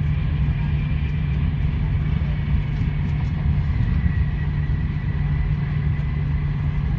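Steady low rumble of a TGV high-speed train running at speed, heard from inside the passenger car, with a faint steady high whine above it.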